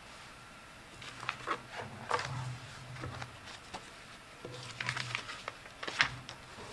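Handling noise picked up by a podium microphone: scattered clicks, taps and rustles in two clusters as speakers change over, ending in a sharp knock about six seconds in.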